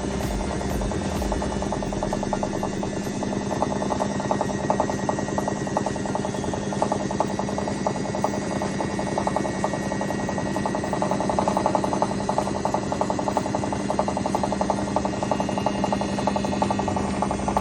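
IFB front-load washing machine drum spinning with a rapid, continuous rattling clatter ('khad-khad') over a steady hum, the kind of spin noise that is often caused by worn drum bearings or a drum fault.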